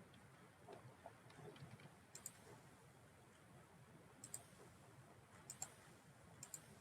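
Faint computer mouse clicks, about four sharp double clicks (press and release) spread over a few seconds, over quiet room tone.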